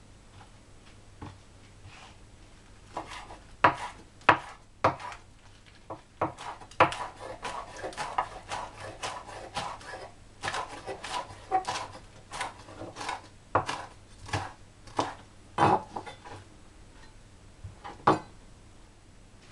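Large kitchen knife chopping beet leaves and spring onion on a wooden cutting board: irregular sharp knocks of the blade on the board. It starts with a few single chops, runs into a quick stretch of chopping, then slows to a few hard single chops near the end.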